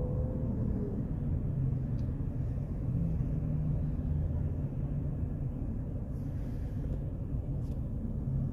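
Road traffic: cars and pickup trucks driving past, heard as a steady low rumble of engines and tyres.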